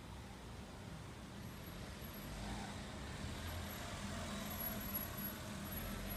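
A motor vehicle engine running steadily, a low hum over a haze of street noise, with a faint high whine coming and going.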